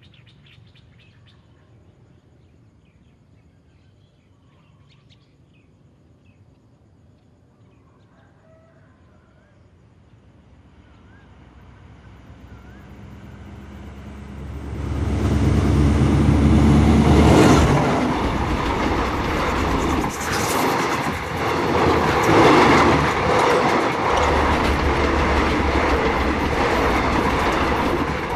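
A passenger train approaching and passing close by at speed. The sound builds from faint in the first ten seconds to loud and stays loud as the carriages rush past.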